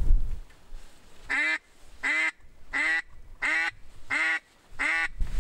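Six evenly spaced duck quacks, each about a third of a second long, in a steady series, after a low rumble that dies away in the first half second.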